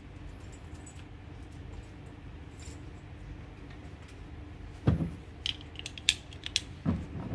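Two dull thumps about two seconds apart, the first about five seconds in, with light metallic clicks and rattles between them from a handgun and shoulder bag being handled.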